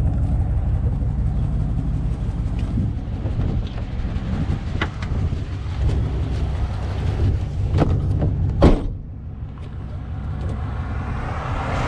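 A motor vehicle running, a steady low engine and road rumble with scattered rattles and clicks. A louder knock comes about nine seconds in, after which the rumble is quieter.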